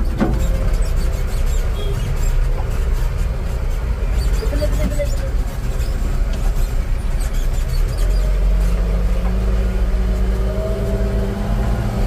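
Heavy diesel machinery engine running steadily under load, a deep low rumble. A brief higher whine sounds about four and a half seconds in, and another higher whine joins near the end.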